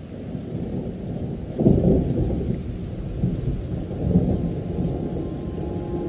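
Rolling thunder over steady rain: a deep rumble that swells to its loudest about a second and a half in, then keeps rolling. Faint steady tones of music begin near the end.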